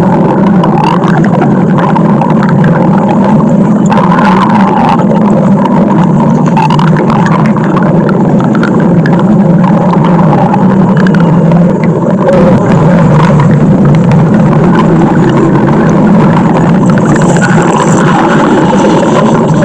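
Stomach growl sound effect: a loud, continuous low rumbling growl that does not break off.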